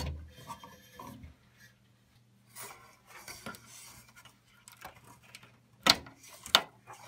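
PC power-supply cable plugs being worked loose from the motherboard: faint plastic scraping and rattling of the connectors and cables, with two sharp clicks about six seconds in.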